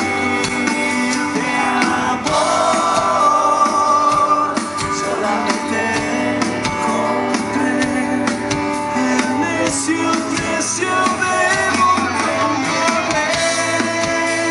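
Live rock concert: a male singer's voice over acoustic guitar and the band.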